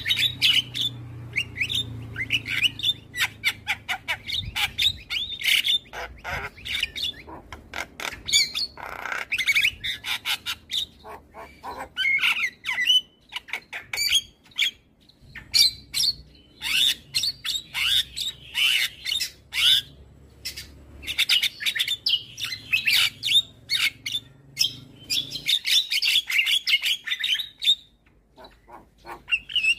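Javan myna (jalak kebo) singing vigorously: a rapid, busy stream of chirps, harsh squawks and clicking notes that breaks off briefly near the end.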